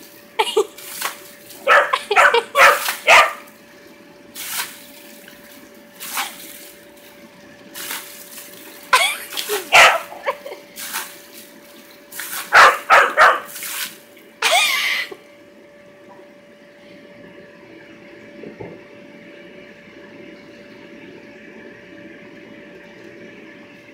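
Dog barking in bursts, with water spraying, for about the first fifteen seconds, then the barking stops. A steady hum and hiss from the inflatable water slide's air blower runs underneath throughout.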